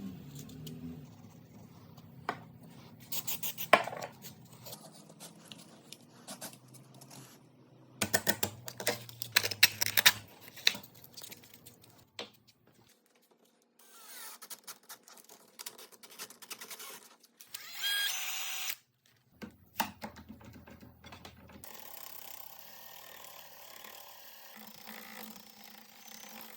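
Workshop sounds of curved wood being sanded and handled: irregular bursts of scraping and rubbing with sharp clicks and knocks. A short high whine comes about eighteen seconds in.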